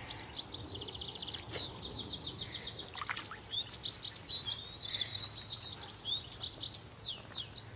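Songbirds singing in dense overlapping song: quick chirps and rapid, fast-repeated trills, with a run of trills about one and a half seconds in and another about four and a half seconds in.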